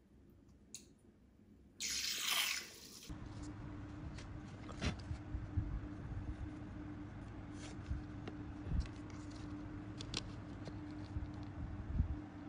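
Hands shifting a clear plastic ruler and set square on paper over a tabletop, with scattered short clicks and taps, over a steady low hum. A loud, brief rushing noise comes about two seconds in, just before the taps begin.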